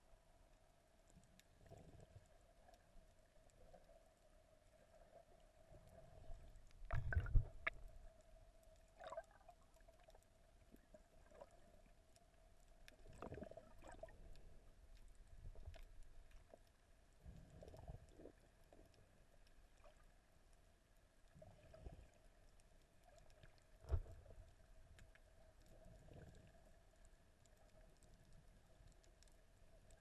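Faint, muffled underwater sound picked up by a camera below the surface: a steady low hum with scattered soft gurgles and thumps of water against the camera, the loudest about seven seconds in and a sharp one about 24 seconds in.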